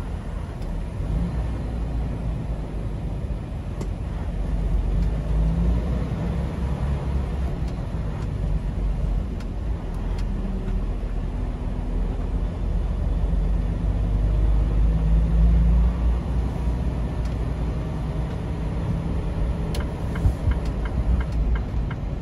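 Semi truck's diesel engine rumbling, heard from inside the cab while driving at low speed, its pitch rising and falling. A few short clicks near the end.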